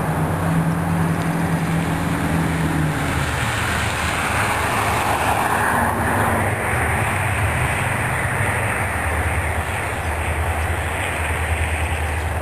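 Union Pacific 1516 diesel locomotive running steadily, heard off-camera as a low engine hum. A rushing noise swells and fades about five seconds in.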